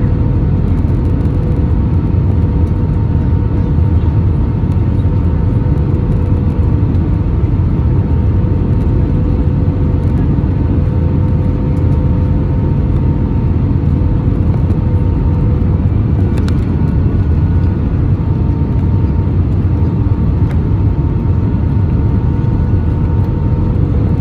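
Steady cabin noise inside an Airbus A320 on approach: a loud low rumble of engines and airflow with a constant hum running through it.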